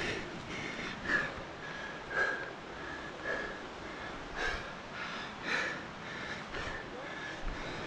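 Rock climber breathing hard with effort mid-climb: short, sharp breaths about once a second.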